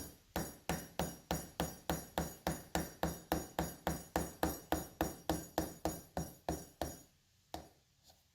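A wood chisel being tapped in a quick, even rhythm of about four light taps a second, each with a short ring, as it pares a taper into a wooden molding. The taps stop about seven seconds in, with one last tap just after.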